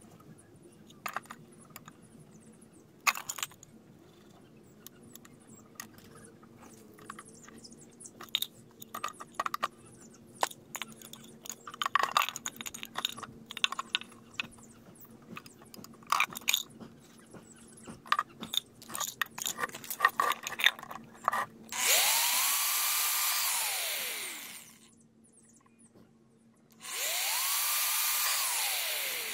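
Scattered small clicks and taps of hands handling metal hinge plates on a PVC pipe. Then an electric drill runs twice into the PVC tube, each time for about two and a half seconds, its whine rising as it speeds up, holding, and falling as it winds down.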